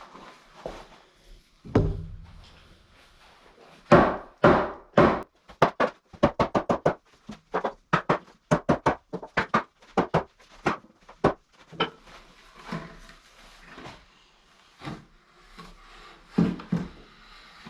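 Repeated hammer blows on oak timber: a few heavy strikes, then a quicker run of about two blows a second, then scattered knocks.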